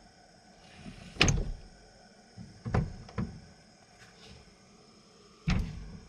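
Sliding side window of a truck camper shell being worked along its track, with a sharp knock about a second in, two more near the middle and another near the end.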